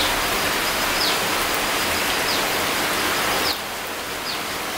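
Steady rain pattering on foliage, an even hiss. A short, high, falling chirp repeats about once a second over it. About three and a half seconds in, the rain drops abruptly to a slightly quieter, duller sound.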